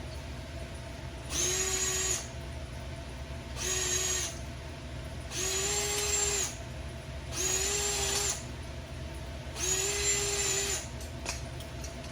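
Power drill run in five short bursts of about a second each, spinning up and winding down each time, drilling out rivet heads.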